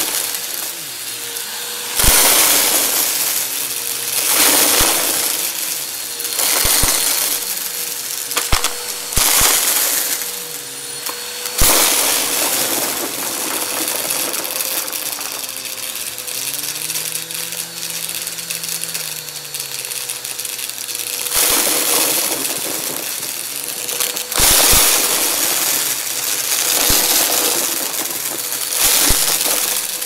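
Upright bagless vacuum cleaner running steadily while sucking up small hard crushed debris, which crunches and rattles loudly through the nozzle and into the bin in bursts about every two seconds as it is pushed over the pile, with a quieter stretch in the middle.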